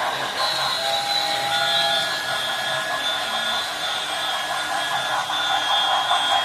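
Model train running on the layout: a steady rushing hiss with thin, high whining tones over it.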